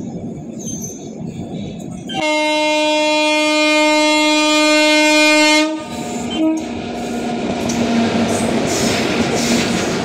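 Indian Railways locomotive horn blowing one long steady blast of about three and a half seconds, then a short toot, over the running rumble of the train. Then the rush and clatter of an oncoming train building up as it passes on the next track, heard from the open door of a moving coach.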